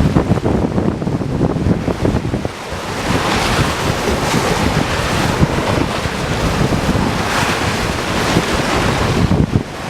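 Strong wind buffeting the microphone over a broad rushing hiss of the typhoon-swollen river's floodwater, swelling and easing with the gusts.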